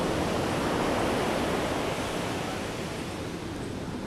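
Ocean surf: a steady rush of waves washing ashore, a little louder in the first two seconds and then easing off.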